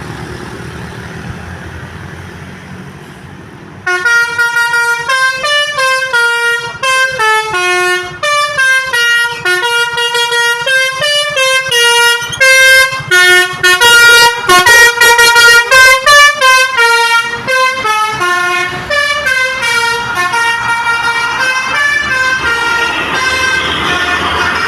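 Basuri V4 telolet multi-tone air horn playing a fast melody of short, changing notes, loud and sustained. It bursts in about four seconds in, after a low rumble.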